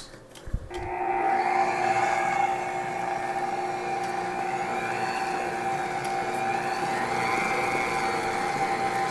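Electric stand mixer switching on just under a second in and running steadily, its beater mixing cake batter in a steel bowl, with a steady motor whine.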